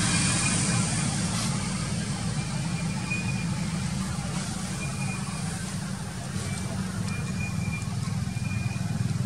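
A steady low rumble, engine-like, runs throughout. Faint short high tones sound about five times over it.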